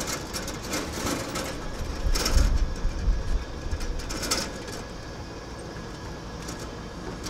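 Cab noise of a 1977 Ford F-250 pickup driving slowly: engine and road rumble with rattles and clicks, and a heavier low rumble about two to three seconds in.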